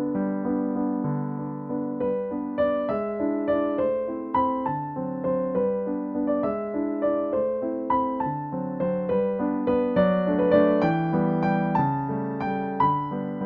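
Background piano music: a calm, steady flow of notes.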